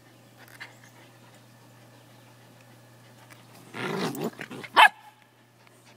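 Miniature Australian Shepherd giving a single short, sharp bark close to the microphone near the end, just after a brief rough, raspy noise.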